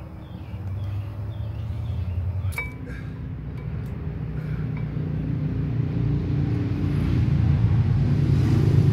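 A few light metallic clinks, the first about two and a half seconds in and the loudest, as brake hardware is handled at the front caliper. Under them is the low rumble of a running vehicle, growing steadily louder.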